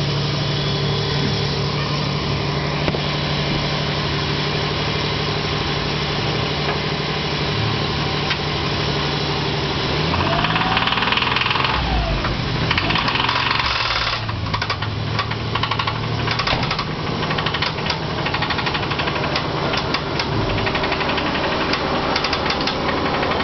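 Nissan truck's worn V6 engine running with a rod knock from bearings worn out by fuel washing into the oil. It idles steadily, is revved up and down twice about ten seconds in, then runs on with a rapid knocking clatter.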